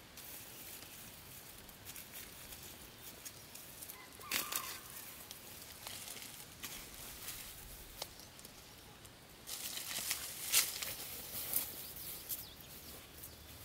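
Small fallen fruits being gathered from dry leaves and dropped into a plastic basket, with scattered light clicks and leaf rustling and a short louder sound about four seconds in. From about ten seconds in, louder rustling and footsteps through dry leaves and grass as the basket is carried off.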